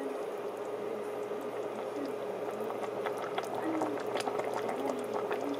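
Spicy Korean braised chicken stew (dakbokkeumtang) boiling in a pot: steady bubbling with many small pops, over a steady hum.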